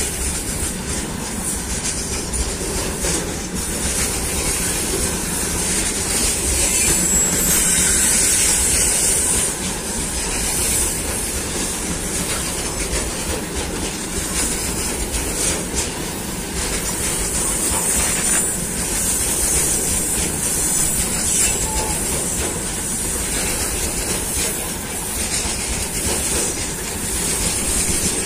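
Long freight train of covered hopper wagons rolling past close by: a steady rumble and clatter of steel wheels on the rails, with a high hiss from the wheels that grows louder for a few seconds starting about six seconds in.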